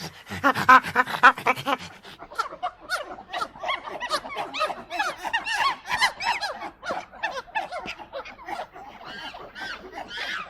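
A monkey panting in rhythmic puffs, about five a second. From about two and a half seconds in, a group of monkeys calls together in many short, overlapping rising-and-falling chirps.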